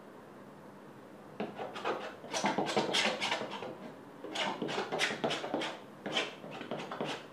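Metal painting knife scraping and dabbing thick paint across a stretched canvas: a quick, irregular run of short scrapes starting about a second and a half in, with a brief pause near the middle.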